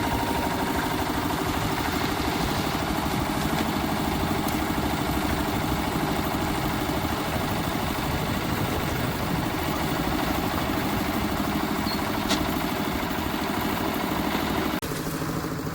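Concrete mixer's engine running steadily, with an abrupt change in the sound near the end.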